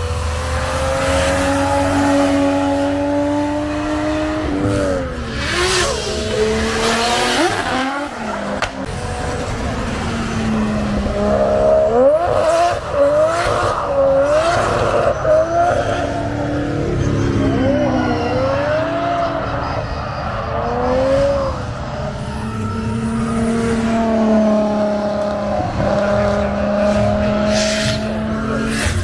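Drift car running sideways: the engine's revs swinging rapidly up and down with the throttle while the tyres squeal and skid, with steadier revs at the start and near the end.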